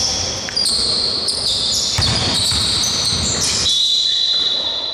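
A basketball bouncing a few times on a wooden gym floor, with the thumps bunched about two to three seconds in. Thin, high tones shift in pitch over the first few seconds, ring out through the hall, and fall away about three and a half seconds in.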